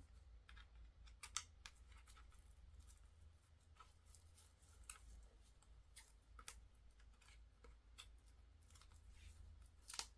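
Faint snips and small clicks of scissors cutting into a K-pop album's packaging, sparse and irregular.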